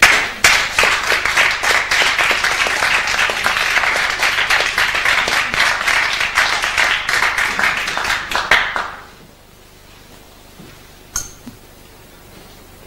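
Audience applauding for about nine seconds, then the clapping stops fairly suddenly. After that the room is quiet apart from a single sharp knock a couple of seconds later.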